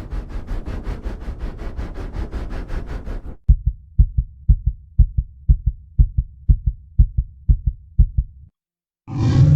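Horror sound-design effects. First comes a fast, even pulsing over a low rumble, then slow, deep heartbeat-like thumps about two a second. The thumps stop suddenly, and a loud roar begins just before the end.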